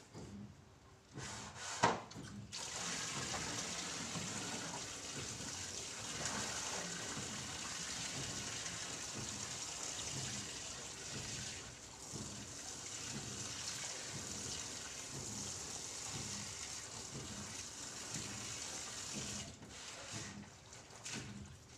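Water running steadily from a tap, starting about two seconds in just after a sharp knock and tapering off near the end.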